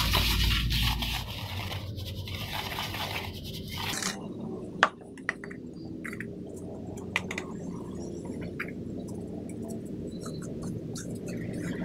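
Gritty mix of cement and crushed firebrick being stirred with a wooden stick in a plastic scoop, a rough scraping for about four seconds. Then quieter handling with a sharp knock about five seconds in and a few lighter clicks.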